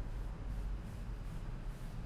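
Hands rubbing and kneading over a person's scalp and hair in a head massage: a low, uneven rubbing close to the microphone, with faint regular strokes.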